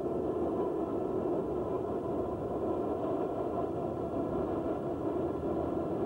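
A steady rushing noise without distinct tones, cutting in suddenly.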